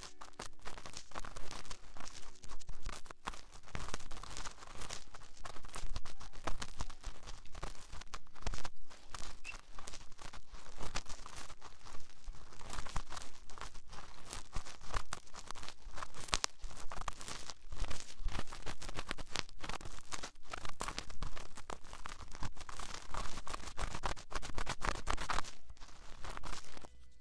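Fast ASMR scratching and tapping close on a microphone: a dense, crackly run of quick strokes that cuts off at the very end.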